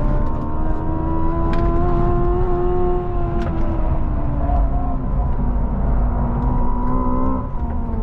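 Hyundai Ioniq 5 N electric car driven hard, heard from inside the cabin: a steady droning tone over heavy road and wind noise. The pitch rises slightly, then eases down and drops about seven seconds in as the car slows.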